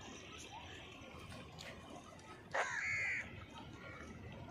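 Grey francolin giving one loud, harsh call about two and a half seconds in, lasting just over half a second.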